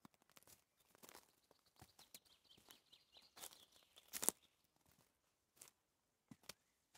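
Footsteps crunching on a dry forest floor of dirt and twigs, an irregular run of crackles and snaps with the loudest snap about four seconds in, thinning out near the end.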